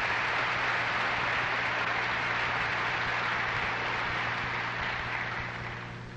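Church congregation applauding steadily, the clapping dying away near the end.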